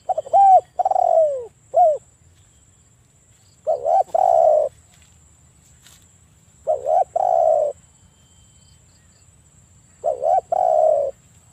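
Spotted dove cooing: four call phrases about three seconds apart, each a couple of short notes then a longer falling coo.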